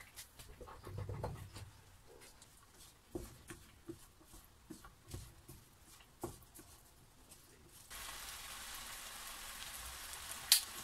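Diced bacon and onions stirred in a frying pan with a wooden spatula: light knocks and scrapes on the pan. About eight seconds in, a steady frying sizzle comes in, with a sharp click near the end.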